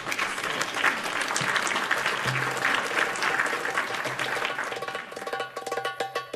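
Audience applause, steady for about five seconds. Near the end, belly-dance music with a fast drum beat begins under it.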